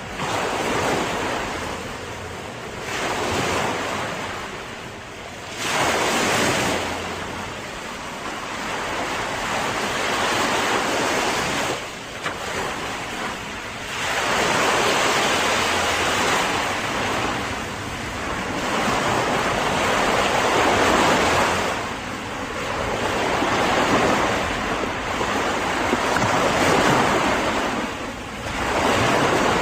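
Ocean surf: waves washing in and breaking in a continuous hiss that swells and ebbs every few seconds, with wind over the microphone.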